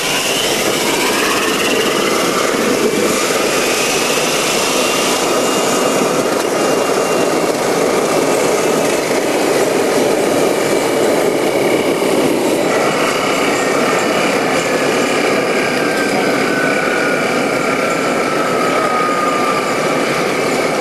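Homebuilt backyard jet engine, a small turbocharger-style gas turbine, running loudly on pressurised kerosene with no throttle valve, so it is either full throttle or off. A turbine whine rises in pitch over the first couple of seconds, and from about two-thirds of the way in a second whine slowly falls under the steady roar.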